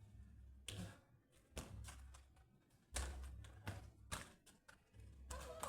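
A series of irregular knocks and thuds, about six, the loudest about three seconds in, over an on-and-off low rumble.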